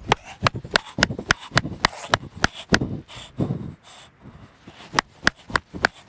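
Wooden stake being hammered into the ground: a quick run of sharp knocks, about three or four a second, with a few duller thuds between them.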